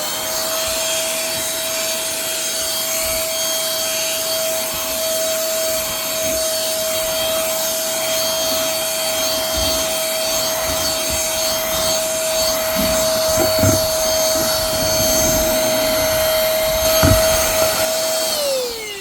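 Cordless handheld vacuum cleaner powered by a DeWalt 20V battery, running with a steady whine and a rush of air while vacuuming, with a couple of short knocks in the second half. Near the end it is switched off and the motor winds down with a falling whine.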